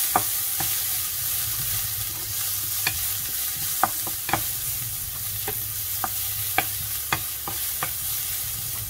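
Shredded fresh ginger sizzling in a pan while a wooden spatula stirs it, knocking and scraping against the pan about a dozen times at irregular moments.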